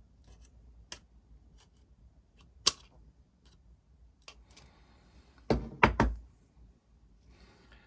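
Pliers and gloved hands working small parts into the plastic housing of a SimpleHuman soap dispenser: scattered light clicks, one sharp click about two and a half seconds in, and a quick run of heavy knocks around five and a half to six seconds.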